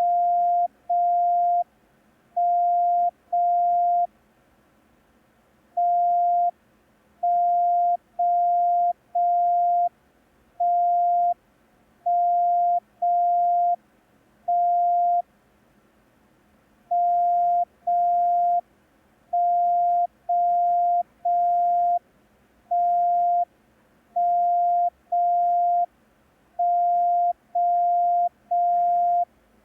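Morse code practice tone sending only dashes, the letters T, M and O (one, two and three dashes), for receiving practice. Each dash is a long beep at one steady pitch, about one a second, with longer gaps between letters.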